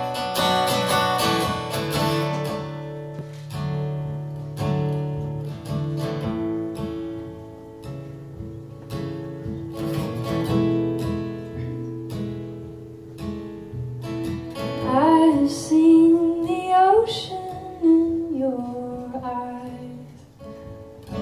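Solo acoustic guitar strummed and picked in a live performance, with the chords ringing on. About fifteen seconds in, a woman's voice comes in with a sliding sung line for a few seconds.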